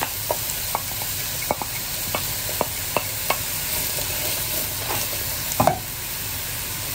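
Thinly sliced onions sizzling in hot oil in a frying pan, with scattered clicks of a utensil stirring them and a couple of louder knocks about five and a half seconds in.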